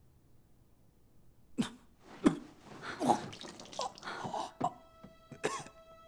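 A man retching and vomiting: a run of gagging heaves and coughs that starts about a second and a half in, the loudest one near the middle. A held music tone comes in near the end.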